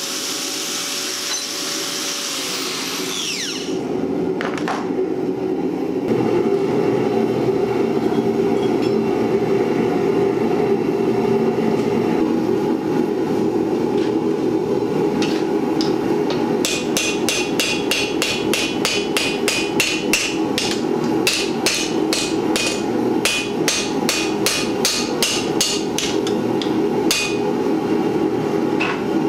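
An angle grinder cuts steel for the first few seconds, then a gas forge runs with a steady roar. About halfway in, a hand hammer starts striking a hot leaf-spring steel (5160) cleaver blank on the anvil. The strikes come fast, about three a second, and ring with each blow as the blank is flattened.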